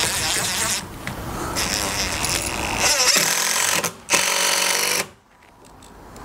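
Impact driver hammering quarter-inch lag screws into wood to mount casters: a fast rattling run that breaks off briefly about a second in and again just before four seconds, then stops at about five seconds.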